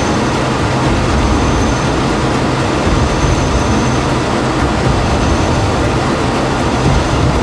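Jet fighter engines making a loud, steady rumbling roar that holds an even level, with no rise or fall of a pass.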